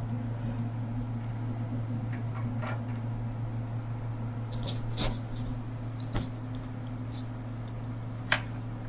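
Steady low electrical hum, with a handful of sharp clicks and taps in the second half from handling a small plastic figure and its fabric shirt.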